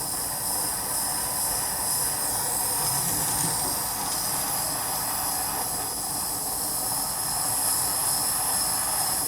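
Small jeweler's soldering torch flame hissing steadily as it heats a bezel joint to flow the solder.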